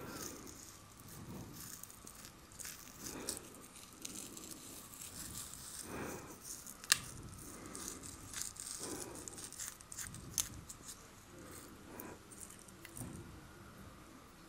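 Close-miked metal tweezers picking at beard hair and skin: scattered small clicks and scratchy ticks, with one sharp, loud click of the tweezer tips about seven seconds in and a smaller one near ten seconds. Soft rustles of fingers and long nails on the face come and go.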